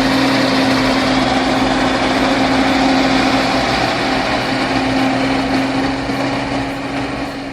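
Bulldozer's diesel engine running steadily as it pushes through rock, a loud continuous drone that eases slightly near the end.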